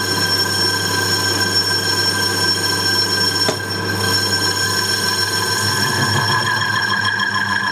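Metal lathe running and cutting a large aluminium disc: a steady machine whine made of several high tones over a low hum as the tool takes the cut, with a short click about three and a half seconds in.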